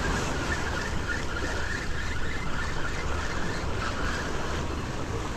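Steady wind rumbling on the microphone over sea surf washing against the rocks of a breakwater.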